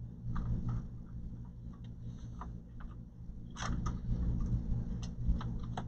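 Scattered light clicks and taps of a solid state drive and plastic parts being handled and positioned inside an open all-in-one computer, over a steady low hum.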